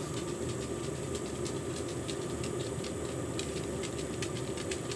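Chinese diesel heater's burn chamber igniting: a steady low rumble with many light, irregular ticks. The burn chamber has carbon built up in it.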